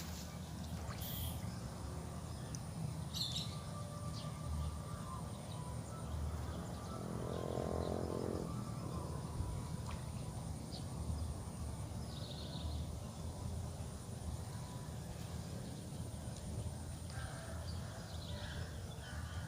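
Outdoor ambience: a steady low rumble and a steady thin high-pitched drone, with a few short bird chirps in the first few seconds. A brief low pitched hum comes about seven seconds in.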